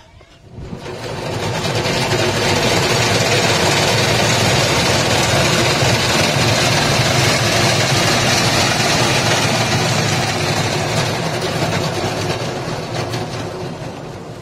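Cotton candy machine running up to speed, a loud steady whir with a low hum, while its spinner head throws out pink sugar floss. It builds over the first two seconds and eases off near the end.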